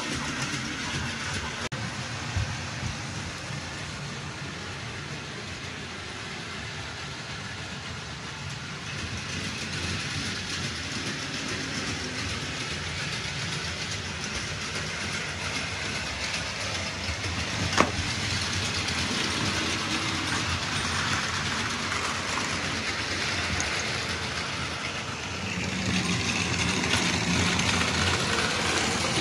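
Battery-powered Plarail toy trains running on plastic track, a steady whirring running noise of small motors and wheels. There is a single sharp click about two thirds of the way through, and the sound grows louder near the end as a train runs close by.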